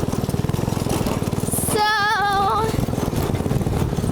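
Small go-kart engine running steadily, with fast, even firing pulses. About two seconds in, a high voice sings one short wavering note over it.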